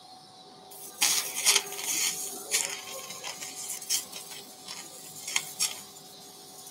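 Monopolar electrocautery pencil crackling and snapping irregularly against bleeding tissue as it coagulates, over the electrosurgical generator's steady activation tone.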